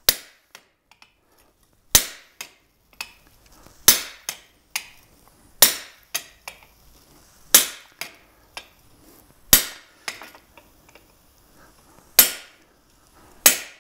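Blacksmith's hand hammer striking a hot chisel held on a red-hot steel horseshoe over a cut plate on the anvil, cutting mane marks. About eight sharp metallic strikes, roughly every two seconds, with lighter taps between.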